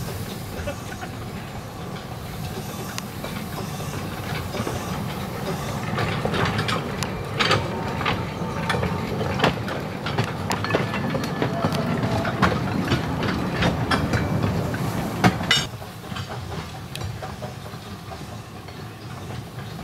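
Baguley 0-4-0T narrow-gauge steam tank locomotive running past close by with its open wagon, wheels clicking over the rail joints. The sound grows louder as it passes, then drops suddenly about fifteen seconds in and the train runs on more quietly.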